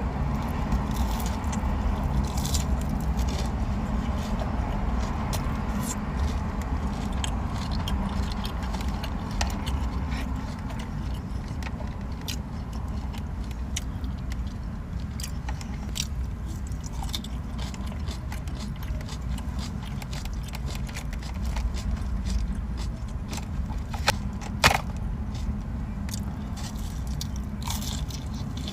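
Close-up eating sounds of sushi being bitten and chewed: scattered wet clicks and smacks, two sharper clicks about three-quarters of the way through, over a steady low rumble.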